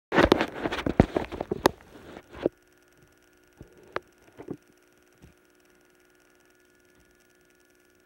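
Loud close clattering and rustling with sharp clicks for about two and a half seconds, typical of a camera being handled. Then a faint steady electrical hum from a TV set playing a videotape, with a few scattered clicks.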